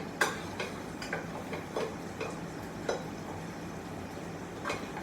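A kitchen utensil clicking and tapping against a frying pan at irregular intervals, about eight light knocks, while Spam fries in the pan.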